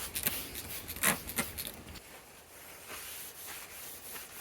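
Light rubbing and handling noises from wiping soot off cabinet doors, with a few sharp knocks and clicks in the first second and a half, then faint rustling.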